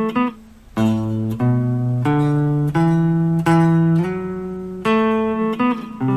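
Guitar playing a short, slow riff of plucked notes, each let ring, about eight or nine notes in all.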